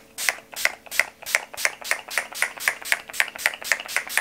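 Finger-pump spray bottle of Beauty Bay Oil Control Priming Mist pumped over and over in quick succession, about four short spritzes a second, each a brief hiss.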